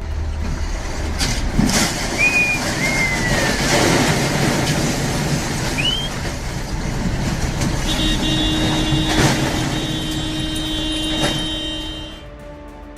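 Road traffic noise with a low rumble from vehicles and a few scattered knocks and short high squeals. About two-thirds of the way through, a steady tone comes in and holds for about four seconds, then the noise drops away.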